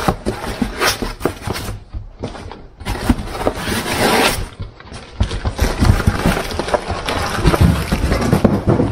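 Unpacking an intake manifold: packaging rustling and scraping, with a longer burst of rustle about three seconds in, then a run of knocks and clatter as the part and its packing are handled.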